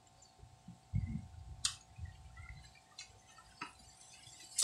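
Quiet eating and handling noises of a person eating green mango: a few sharp clicks and soft low thuds over a faint steady hum.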